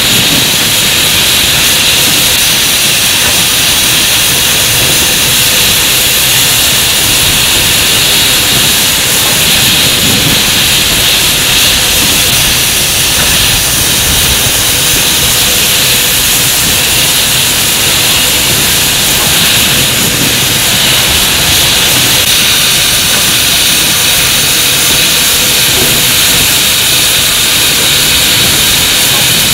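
Steady loud hissing rush of a moving steam locomotive, a Bulleid West Country class Pacific, running alongside another train, with no separate exhaust beats standing out.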